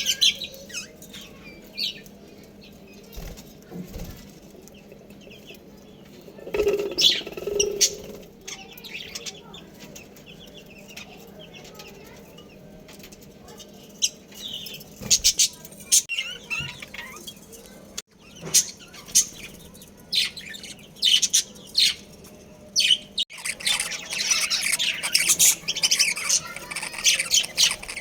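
Budgerigars chirping and twittering in short high calls, with wing flutters. The chirping grows into a dense, busy chatter near the end.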